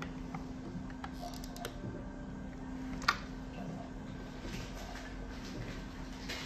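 Light plastic clicks and taps from handling the blood tubing set and fittings on a Fresenius 5008S dialysis machine, with one sharp, louder click about three seconds in. A steady hum from the machine runs underneath.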